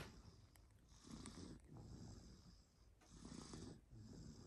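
A sleeping toddler snoring softly, one slow breath about every two seconds.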